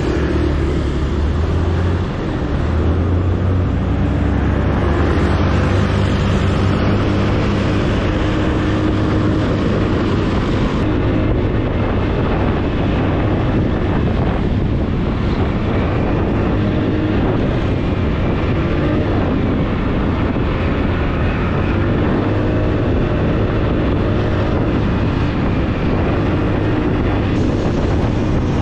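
Motorcycle engine running under way, its pitch shifting a few times, with wind rushing over the microphone.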